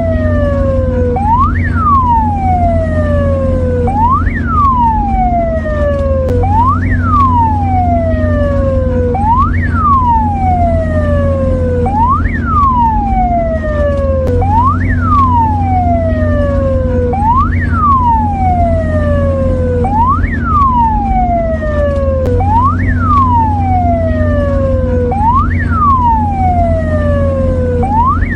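Mexican ambulance siren sounding a repeating cycle: a quick rise in pitch, then a long falling sweep, about every three seconds, over a steady low hum.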